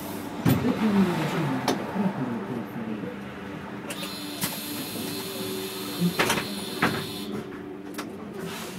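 City bus standing with its engine idling, overlaid by several sharp clicks and short hisses. A high steady tone comes in about four seconds in and stops about three seconds later.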